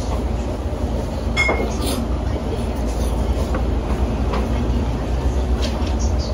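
Steady low rumble of room background noise, with light scattered clicks of wooden chopsticks against a plate of grilled fish. There is a brief higher clink about a second and a half in.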